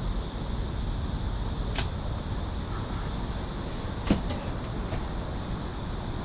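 A sharp click and, about four seconds in, a louder knock with a few lighter clicks, typical of the metal-and-fabric frame of a folding camp cot being put together. These sit over a steady low rumble of outdoor city background.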